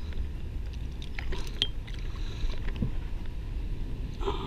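Water lapping and sloshing against the side of a kayak, a steady low rumble with a few faint ticks and clicks.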